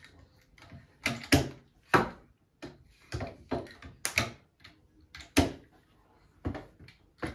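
Clamps and tools clacking and knocking against the glass rim of a large glass aquarium as they are handled: about a dozen sharp, irregular knocks.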